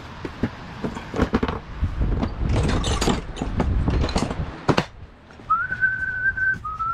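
A plastic toolbox being opened and hand tools clattering and knocking together as a hand rummages through them. From about five and a half seconds in, a person whistles a tune in a few long, held notes.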